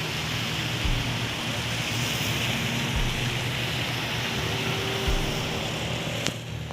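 Steady hiss of rain and road traffic, with a soft low thump about every two seconds.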